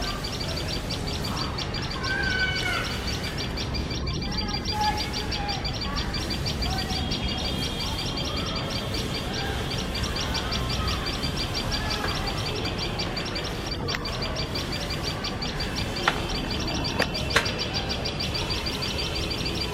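Tailorbirds giving shrill alarm calls, a fast, even train of high repeated notes with other short calls over it: the birds' alarm at a cat close to their nest. A few sharp clicks come near the end.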